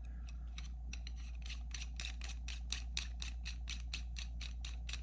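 A small threaded jam nut being spun on by hand: a steady run of light metallic clicks, about five or six a second, over a low steady hum.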